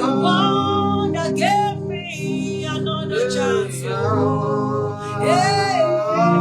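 Worship music: a solo voice singing a sliding, ornamented melody over a steady, sustained instrumental accompaniment.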